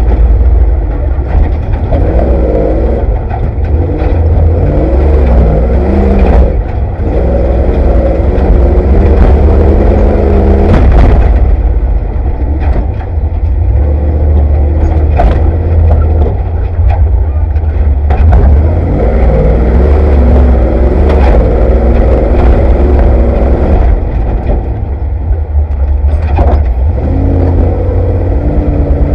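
Off-road race vehicle's engine heard from inside the cab, its pitch rising and falling as it revs, over a heavy low rumble. A sharp knock comes every few seconds.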